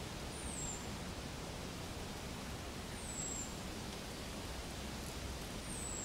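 Steady outdoor background hiss. A short, high, thin whistle falling in pitch sounds three times, about three seconds apart.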